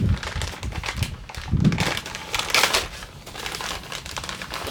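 Hand-handling noise of crinkling and rustling, with a few dull low bumps and louder flurries near the start and about two seconds in.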